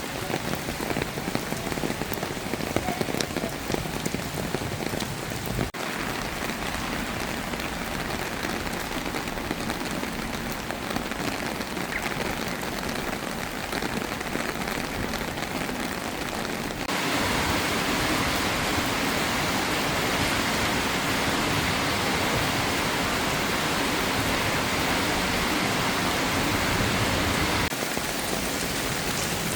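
Steady rain falling and splashing on surfaces, with no voices. The sound jumps abruptly about 6, 17 and 28 seconds in, and is louder and brighter from about 17 to 28 seconds.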